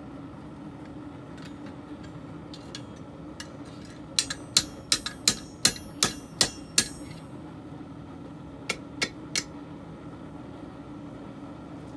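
Hammer blows on a steel messer blade at the anvil: a quick run of about eight sharp, ringing strikes, then three lighter taps a couple of seconds later, over a steady low hum.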